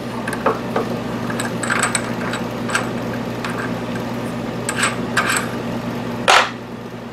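Light metallic clicks and rattles as a drill bit is loosened and taken out of a milling machine's drill chuck by hand, with a louder brief scrape or clatter about six seconds in. A steady low hum runs underneath.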